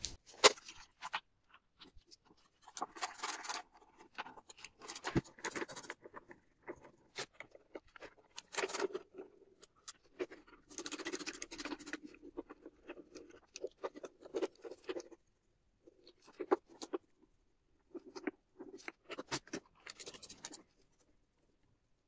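Hand screwdriver with a Torx bit undoing the screws of a washer-dryer's metal heater and fan duct housing: scattered clicks and short bouts of metal-on-metal scraping as screws are turned out.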